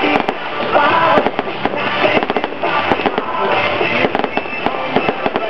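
Fireworks display: aerial shells bursting in a rapid, continuous run of bangs, with music playing alongside.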